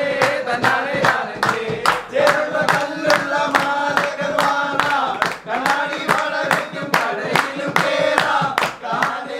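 A group of men singing together in unison, clapping their hands in a steady rhythm of about three claps a second.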